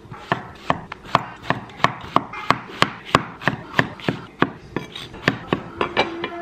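A kitchen knife chopping zucchini on a wooden cutting board: a steady run of sharp knife strikes against the board, about three a second.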